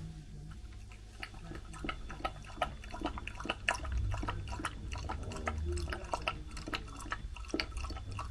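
A puppy's wet mouth sounds: irregular smacking and clicking, as of a puppy eating, licking or lapping.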